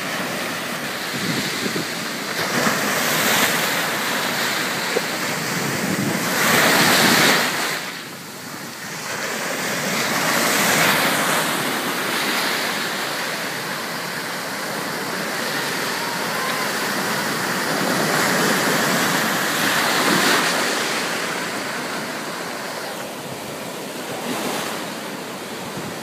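Ocean surf breaking and washing up the beach, a steady rush that swells and fades with each wave, loudest about seven seconds in.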